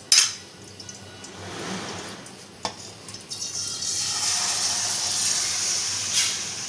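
Marinated chicken added to hot cooking oil in a saucepan: a sharp clatter at the start, then frying that builds into a steady sizzle from about three seconds in.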